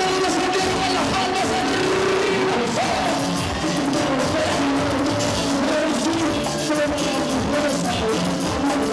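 Live cumbia villera band playing at full volume: electronic keyboard, electric bass and percussion, with a singer's voice over them.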